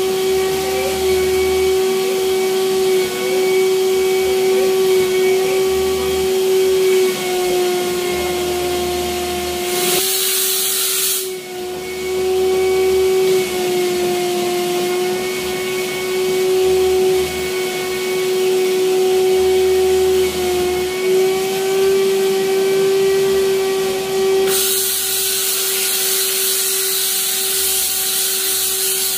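Steady motor whine of a hose-and-wand mattress-cleaning machine, its pitch dipping slightly now and then as the wand works the mattress. A loud rushing hiss cuts in for about a second around ten seconds in, and again from about twenty-four seconds to near the end.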